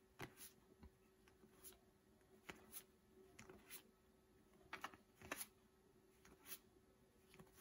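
Faint, irregular ticks and slides of stiff board-game cards being handled and moved one behind another in the hand.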